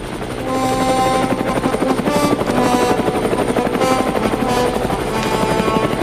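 Helicopter landing, its main rotor blades beating in a fast, steady chop as it settles. Background music with held notes plays over it.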